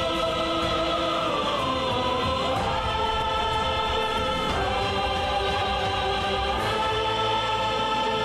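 Men's and women's voices singing long held notes together over backing music in a Vietnamese revolutionary-song stage performance. The pitch steps down about two seconds in and shifts again around the middle.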